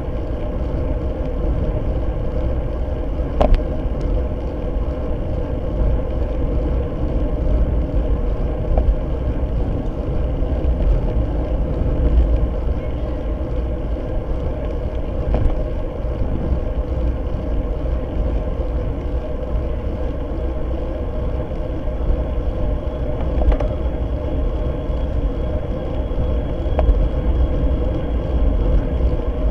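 Steady wind and road noise from a road bike at race speed, recorded by a Fly6 rear-facing camera-light mounted on the bike, with a few sharp knocks scattered through it.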